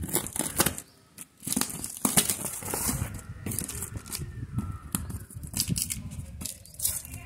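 A cardboard box being cut and pulled open: a blade slicing through plastic packing tape, with the tape ripping and the cardboard flaps crinkling. The sound comes as a string of short, irregular rips and rustles, with a brief pause about a second in.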